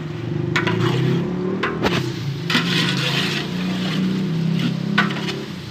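A metal ladle stirs and scrapes chicken and masala frying in a large aluminium cooking pot, with a few sharp scrapes against the pot. Under it runs a steady low engine drone, which fades near the end.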